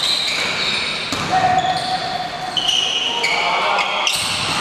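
Basketball play in a gym hall: the ball bouncing on the floor amid many short high squeaks from sneakers sliding on the court, with players' voices, all echoing in the hall.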